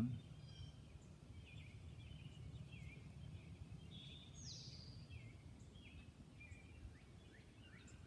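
Small birds chirping in the background, a scatter of short high calls with one clearer downward-sliding call about four seconds in, over a faint steady low outdoor rumble.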